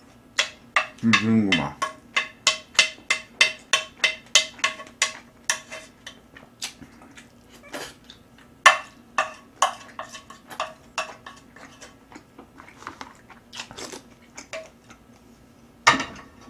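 Close-miked eating: a quick run of wet clicks, about three a second, from chewing and a utensil scraping sauce off a plate. The clicks thin out after about six seconds, and there is a short hum from the eater about a second in.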